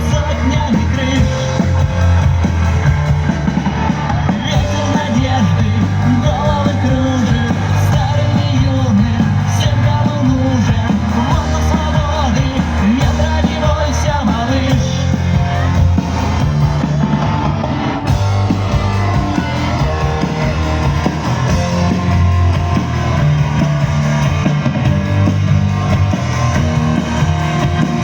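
A live rock band playing: electric guitars, bass and drums, with a singing voice over them.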